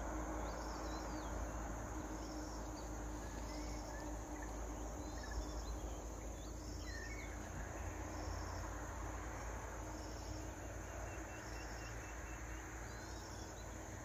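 Steady high insect chorus, with a short pulsed insect chirp repeating about once a second and a few scattered bird calls, over a low even rumble.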